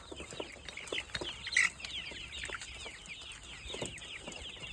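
Chickens calling: many short, high, falling peeps overlapping without a break, with a brief scuffling burst about one and a half seconds in.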